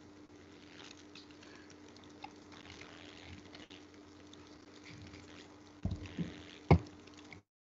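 Faint hiss with a steady low hum from an open microphone on a call, then three knocks about six seconds in, the last the loudest.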